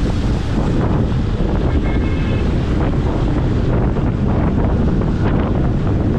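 Loud, steady wind buffeting the microphone of a GoPro Hero10 Black on a moving two-wheeler at speed.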